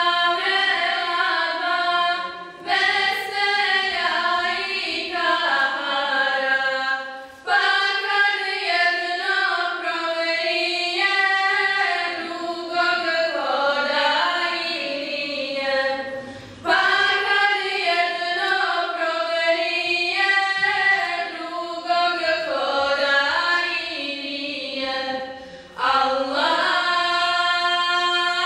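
Choir singing an Islamic devotional song (ilahija) in long sustained phrases, with brief breaks between lines.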